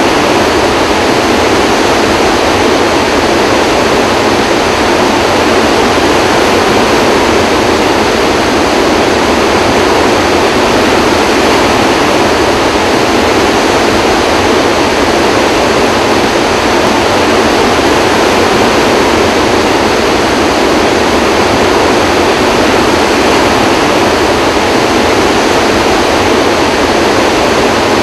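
Floodwater rushing under the open spillway gates of Kaw Dam and churning in the basin below, a flood release of about 44,000 cubic feet per second through all eight gates: a loud, steady rush of water.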